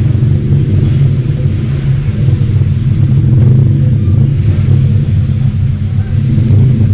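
Steady low rumble with a hum in it, loud and unbroken, like a motor or distant traffic.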